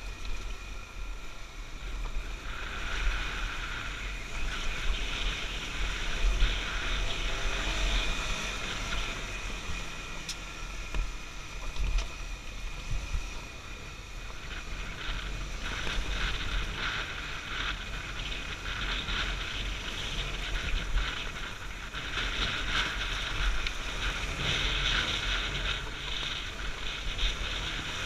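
Honda XR250 Tornado single-cylinder four-stroke dirt bike running along a rough gravel track, its engine note swelling and easing, with wind buffeting the microphone.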